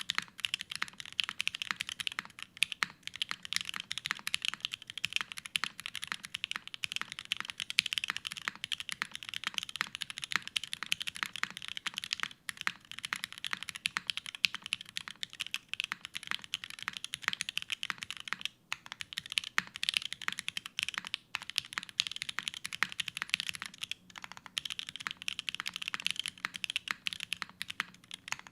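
Continuous fast typing on a Unikorn R2.2 custom mechanical keyboard with lubed JWK Alpaca linear switches on an aluminium plate and GMK ABS keycaps: a dense, unbroken stream of keystrokes with a few short pauses.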